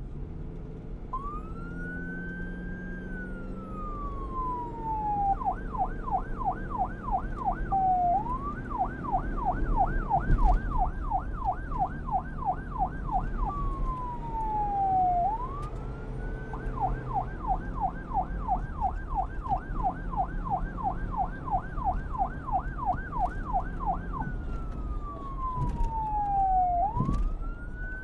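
Police car electronic siren switching between wail and yelp: a slow rise followed by a long falling sweep, then runs of rapid up-and-down yelps of about three or four a second, back and forth several times, over a low rumble of traffic.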